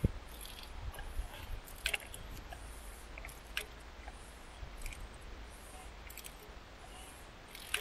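Click-type torque wrench on a 32 mm socket tightening the oil filter housing cover of a Jaguar 3.0 diesel to 25 Nm: a handful of separate clicks and creaks as the handle is worked, one to two seconds apart, the last near the end, over a low steady hum.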